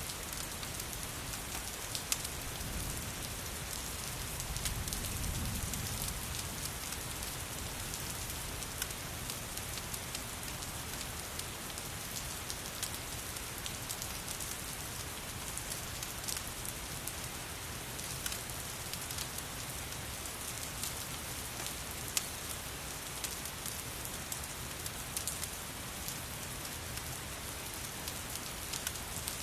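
Steady rain with scattered sharp crackles of a wood fire mixed in, in a rain-and-fireplace ambience. A low rumble swells briefly about four to six seconds in.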